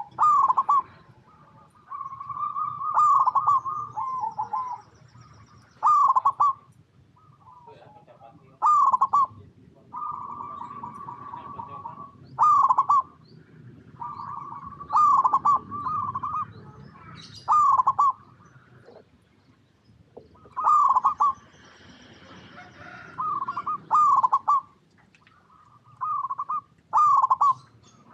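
Zebra dove (perkutut) singing its staccato cooing song, a phrase about every three seconds: short loud clipped notes mixed with longer trilled coos.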